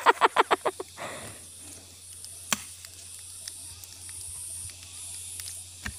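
High-pitched insect buzzing that comes and goes in pulses of about half a second. It opens with a rapid burst of short, voice-like pulses lasting under a second. Two sharp knocks fall about two and a half seconds in and near the end.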